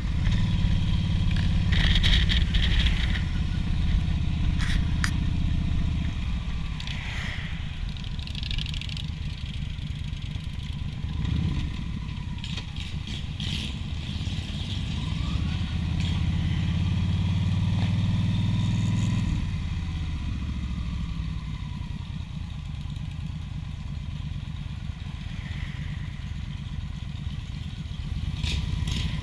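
Motorcycle engine running while riding, heard from the bike's own handlebars, louder for the first several seconds and again in the middle stretch as the throttle changes.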